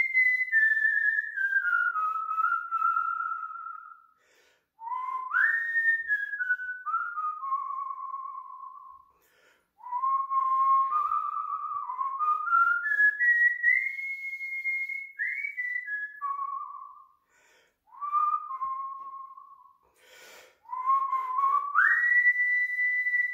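A man whistling a tune by mouth: one clear, pure note line moving stepwise through a melody. The phrases often open with an upward leap and then step down, with brief pauses for breath between them.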